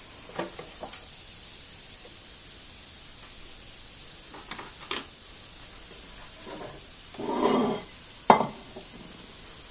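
Bacon-wrapped potatoes sizzling steadily on the hot plates of a Tristar contact grill. A few light clicks from the grill lid as it is lifted near the start, then a louder rustling burst and a sharp knock near the end.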